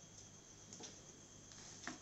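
Near silence, with a couple of faint, short clicks from a spoon and a plastic ice-cream tub being handled, the sharper one near the end.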